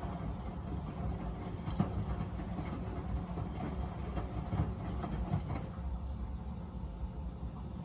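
Miele W Classic WDA211WPM front-loading washing machine running its wash cycle: a steady low rumble from the turning drum, with irregular clicks and knocks from the tumbling load.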